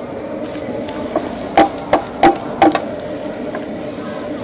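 Metal ladle knocking against a wok four times in quick succession while yellow chives and eggs are stir-fried, over a steady low hum.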